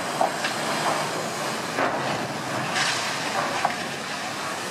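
A large ship's steel hull grinding and scraping up the beach as it is run aground for scrapping: a steady rushing noise with a few short crunches through it.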